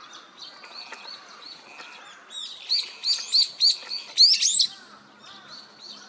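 Small songbirds chirping: a string of short, arching chirps, with a louder run of quick chirps and rising whistles about halfway through.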